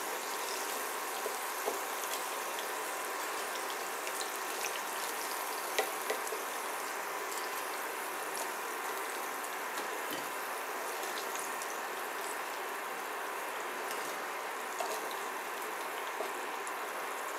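Hot vegetable oil sizzling and crackling steadily around chicken nuggets in a ceramic pan, with a few light clicks as wooden spatulas touch the pan.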